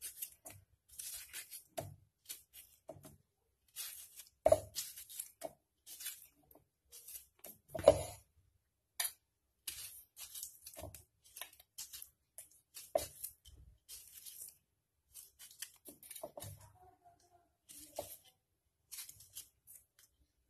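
Small knife slicing through tomato held in the hand, a run of irregular wet snicks, with tomato pieces dropping into a stainless-steel mixer jar and a few louder knocks.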